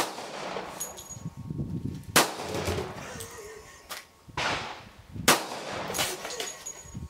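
Three .45 ACP shots from a Colt M1911 pistol, a little over two and then three seconds apart, each followed by a brief echo. Short, high metallic pings come in between the shots.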